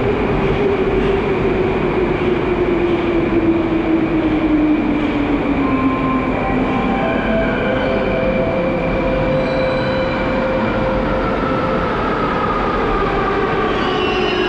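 Ezh3 metro train approaching through the tunnel into an underground station: a loud, steady rumble with whining tones that glide slowly down in pitch.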